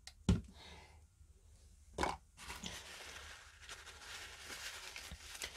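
Two short knocks from the clear plastic nebuliser being handled, about two seconds apart, then steady rustling of a paper towel as the nebuliser is wiped dry.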